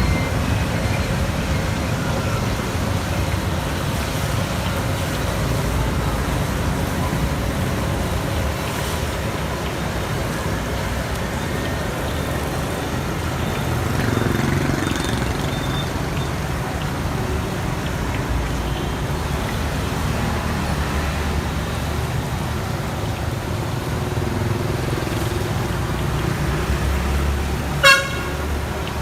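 Steady street traffic noise, with one short horn toot near the end.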